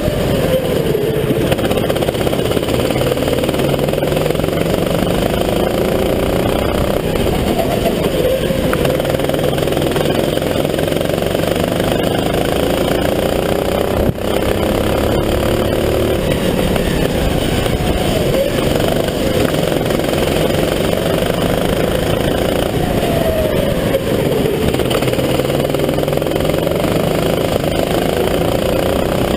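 Sodi RT8 rental kart engine heard onboard at full race pace. Its pitch climbs along the straights and drops away into the corners, over and over, lap after lap.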